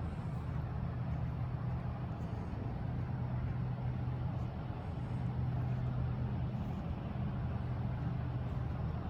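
Pickup truck engine idling steadily, a constant low hum with no change in pitch.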